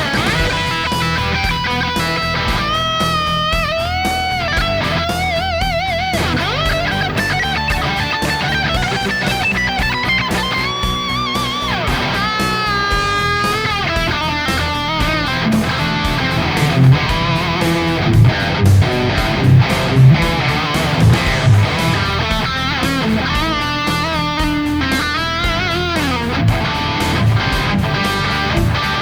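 Electric guitar played through a Sonicake Pocket Master amp modeler on a high-gain distorted tone. Sustained lead notes with wide vibrato come first, then heavy, choppy low chords that are loudest in the second half.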